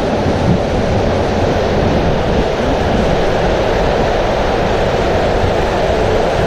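Inflatable ring raft sliding down an enclosed water slide tube: a steady low rumble of rushing water and the raft moving along the flume.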